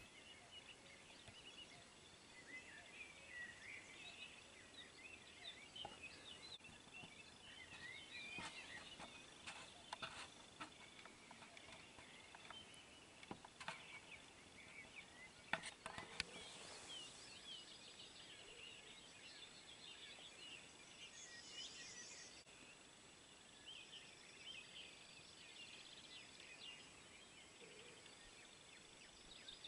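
Faint birdsong: many short chirps and trills, with a thin steady high tone behind them. There are scattered clicks, and a single sharp knock about fifteen seconds in.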